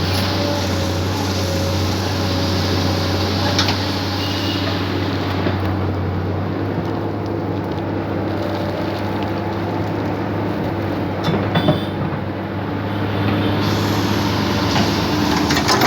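Heavy diesel engines of road-construction machinery running steadily, with a low, even drone. A few sharp metallic knocks come about 11 to 12 seconds in.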